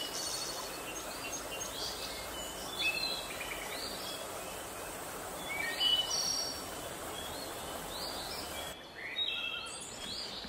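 A shallow stream running over rocks, with birds chirping in short repeated calls over it. The water sound cuts off suddenly near the end, leaving only the birds.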